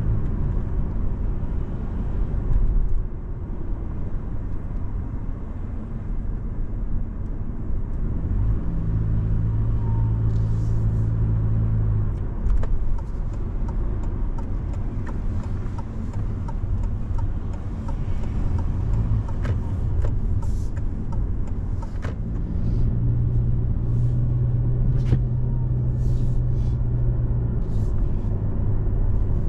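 Car driving: steady low engine and road rumble, with a deeper hum that swells twice, for a few seconds each time.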